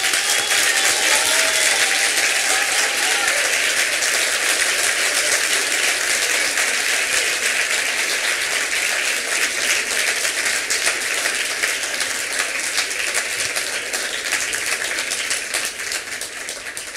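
Audience applauding, a dense, steady clapping that thins out near the end.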